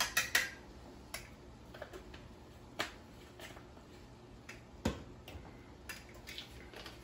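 Scattered light clicks and taps of plastic spice jars and a spatula being handled over a pan: a quick cluster at the start, then single clicks every second or so, with a sharper knock about five seconds in.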